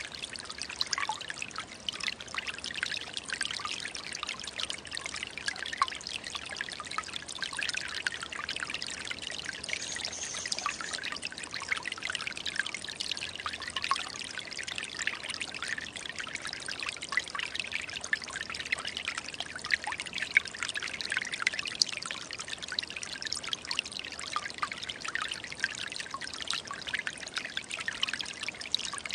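Small forest stream trickling and babbling steadily, a constant rush of water full of tiny splashes.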